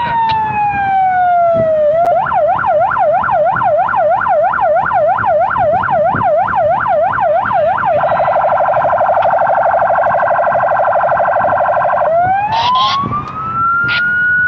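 Police patrol car's electronic siren cycling through its patterns. A slow wail falls in pitch, then from about two seconds in a fast yelp sweeps up and down about four times a second. Around eight seconds it switches to a much faster warble, and from about twelve seconds a slow wail rises again.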